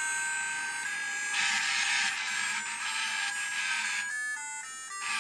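Codey Rocky robot's small built-in speaker playing a programmed electronic tune of held beeping tones, thin with no bass; near the end it changes to short stepping notes.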